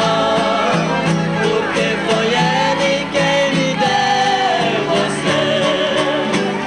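Live sertaneja (Brazilian country) music played on accordion and acoustic guitars, with singing over a steady strummed rhythm.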